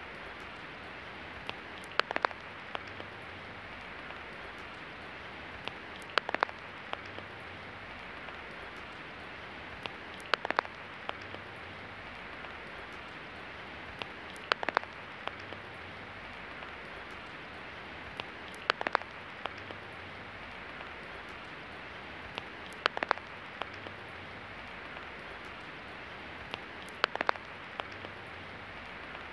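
Steady rain hiss, with a short cluster of louder sharp drip clicks that recurs at even intervals of about four seconds.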